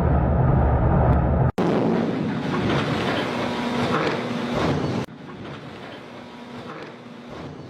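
Steady low rumbling noise with wind on the microphone, cut off abruptly about a second and a half in and again about five seconds in, the last part quieter.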